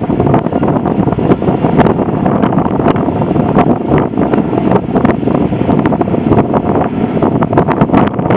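Wind buffeting the microphone with a steady crackle over the steady noise of a Boeing 757's jet engines at takeoff power as the airliner accelerates down the runway.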